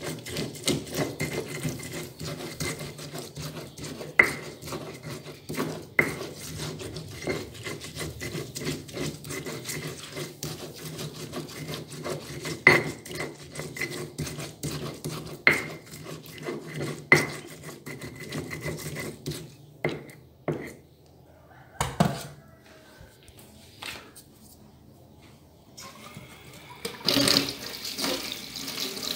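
Stone pestle grinding garlic, turmeric, coriander and salt into a paste on a flat stone mortar (cobek): steady scraping and rubbing with sharp stone-on-stone knocks every second or two, stopping about twenty seconds in. A water tap starts running near the end.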